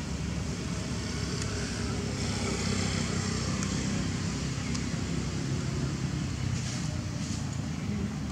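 Steady low background rumble with a faint hiss and a few soft clicks.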